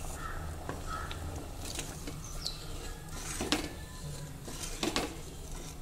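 A plastic spoon stirring thick sambar in a metal pressure-cooker pot, with three light knocks of the spoon against the pot.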